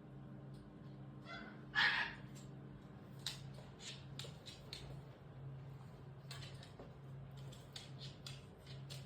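A Shiba Inu gives one short, high squeal about a second and a half in, followed by a run of light clicks and taps.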